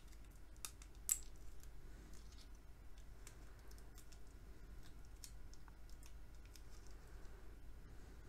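Faint scattered clicks and ticks of an 18650 battery pack being handled: fingers on its taped cells, small protection board and red and black leads, with one sharper click about a second in.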